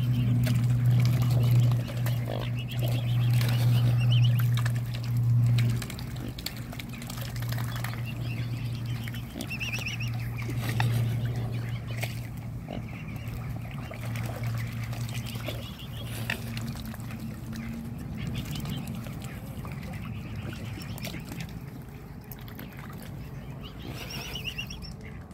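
A flock of mute swans and cygnets feeding, giving a few short high-pitched calls about ten seconds in, again soon after, and near the end. Under them runs a low steady hum, loudest for the first six seconds and then fading.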